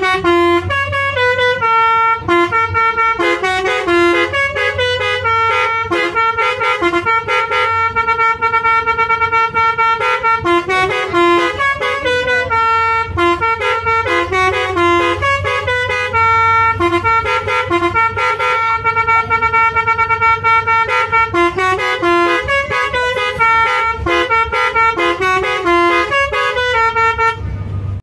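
A bus's Basuri 'telolet' multi-trumpet horn playing a melody, a quick run of short notes mixed with longer held ones, without a break. A low steady hum runs underneath.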